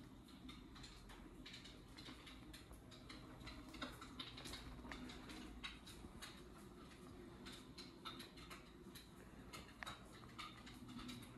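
Near silence: faint room hum with scattered light clicks and ticks.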